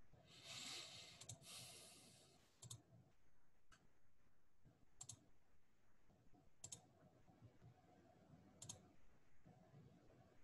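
Faint computer mouse clicks, about five sparse clicks a second or two apart, as a presentation is closed and the next one opened; a soft brief hiss near the start.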